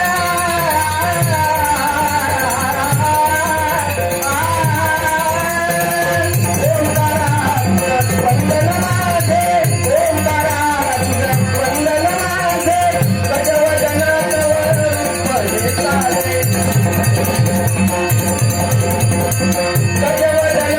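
Marathi devotional Ganesh stavan: a male voice singing long, bending held notes over quick drum strokes and jingling rattle-like percussion.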